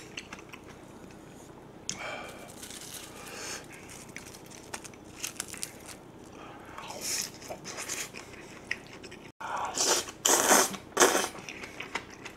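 A person chewing and biting a mouthful of spicy braised monkfish wrapped in roasted seaweed: scattered wet chews and crunches, with a louder run of crunching about ten seconds in.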